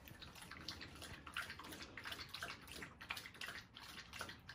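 Dog lapping water from a stainless steel bowl, a quick, irregular run of wet laps and splashes.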